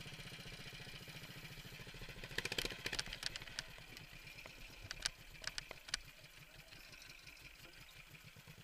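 Racing ride-on lawnmower engine idling with a steady low chug, heard from on board the mower. Between about two and a half and six seconds in, a run of sharp clicks and rattles sits over it.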